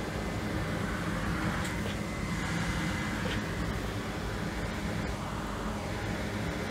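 A steady machine hum with a low drone, with a few faint small clicks as phone parts are handled on the bench.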